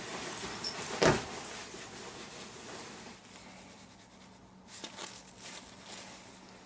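Rustling of a padded nylon jacket being put on and handled, with one sharp knock about a second in and a few light clicks near the end.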